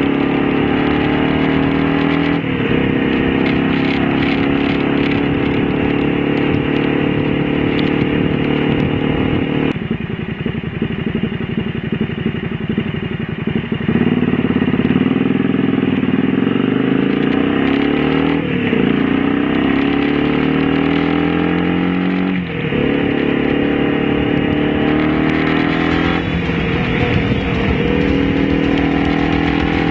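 Honda V-Twin Magna 250's V-twin engine running on the road, its pitch climbing as it accelerates and dropping sharply at several gear changes, with a quieter, lower stretch of a few seconds in the middle as the throttle eases off.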